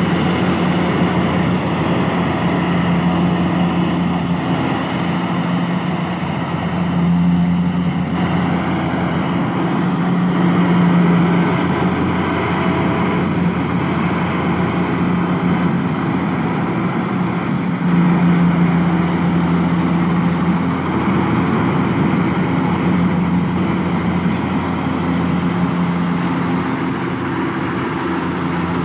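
Kubota DC70 combine harvester's diesel engine running steadily, its hum swelling and easing a little every few seconds.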